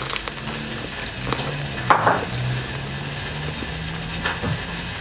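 A person biting into and chewing toast topped with ham, avocado and tomato, with a crisp crunch about two seconds in and a few small clicks from mouth and hands.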